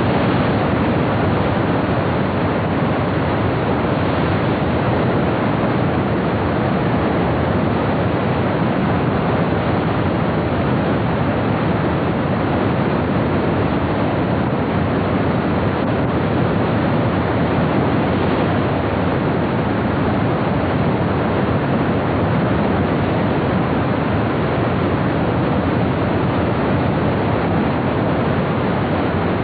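Loud, steady roar of heavy white-water rapids, an unbroken rushing of water.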